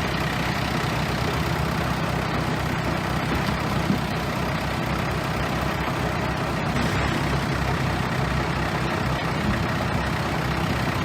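Bulldozer's diesel engine running steadily under a constant even noise, with no change in pitch.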